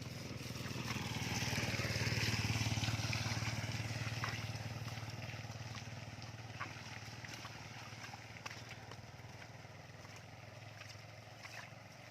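A motor vehicle passing by in the rain: its engine and tyre noise swell to a peak about two seconds in, then fall in pitch as it fades away. Steady rainfall with scattered drops continues underneath.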